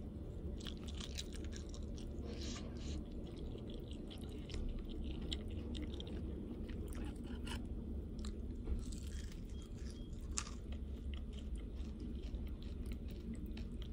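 Close-up chewing of crispy fried chicken and potato wedges, with many short sharp crunches over a low steady hum.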